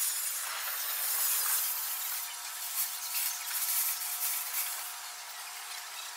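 Steady outdoor hiss, with faint steady tones humming underneath.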